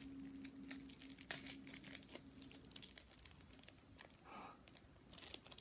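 Fine glitter being poured and shaken from its container, with rustling, crinkling and many light ticks of handling. A faint steady hum runs through the first half.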